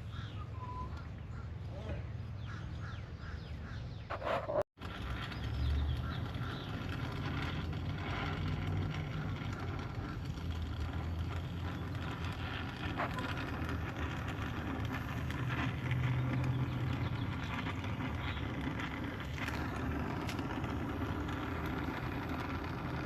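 Steady hiss of a brazing torch flame over a low hum, with a sudden brief break about five seconds in.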